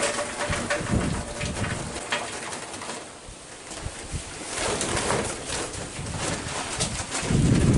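Charcoal briquettes poured from a paper bag into a metal charcoal chimney starter, clattering and rustling, with a louder bump of the bag being handled near the end.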